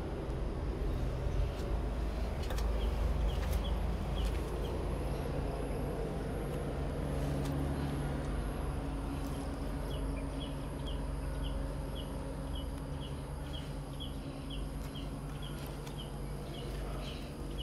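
Outdoor ambience: a steady low rumble with a faint hum, under a run of short, high chirps from a small animal, repeating about twice a second.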